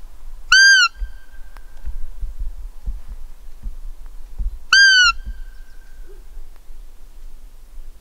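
Two short squeaks blown on a hand-held roe deer call, about four seconds apart, each rising and then falling in pitch. The call imitates a roe doe's bleat to lure a buck during the rut.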